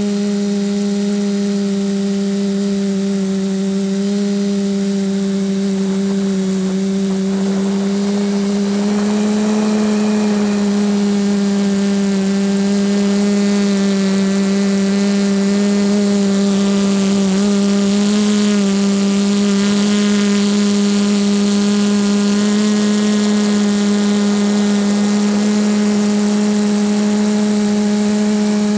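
TBS Discovery quadcopter's brushless motors and propellers buzzing steadily in flight, heard from the GoPro mounted on the aircraft. The pitch shifts slightly a few times as the throttle changes.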